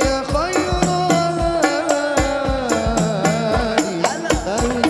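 Male voices singing an Arabic sholawat into microphones over hadroh frame drums and a deep bass drum keeping a steady beat.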